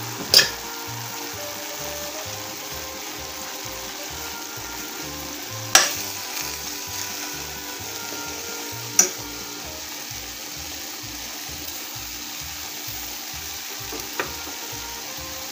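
Chicken, grated carrot, sweet pepper, onion and garlic sizzling in corn oil in a stainless steel frying pan. A spatula stirs and knocks sharply against the pan four times: near the start, about six seconds in, about nine seconds in, and faintly near the end.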